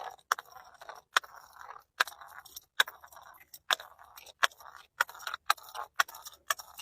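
Repeated sharp cracks, one or two a second and coming faster near the end, each followed by a brief crunchy crackle: brittle things being crushed.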